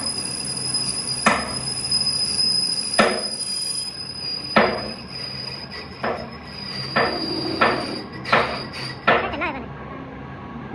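Metal being struck by hammer blows every second and a half or so, coming faster near the end, over a steady high-pitched whine that stops shortly before the end.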